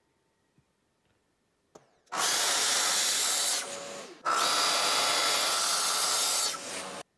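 Festool TS 55 plunge-cut track saw running and cutting through a board in two loud runs, the second longer, with a brief dip between them. It stops suddenly near the end.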